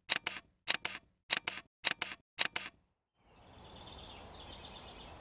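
Camera shutter clicks, about six double clicks at roughly two a second with silence between them. After about three seconds they give way to steady outdoor background noise.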